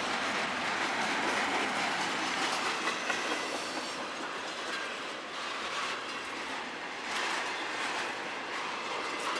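Intermodal freight train cars loaded with highway trailers rolling past close by: steady wheel-on-rail noise with clickety-clack from the wheels.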